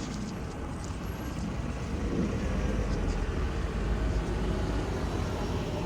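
Street background noise with a low vehicle rumble that grows louder about two and a half seconds in.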